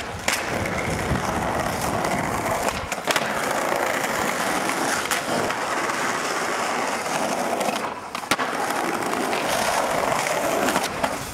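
Skateboard wheels rolling over stone paving slabs, a steady gritty rolling noise, broken by a handful of sharp clacks of the board slapping and landing on the ground.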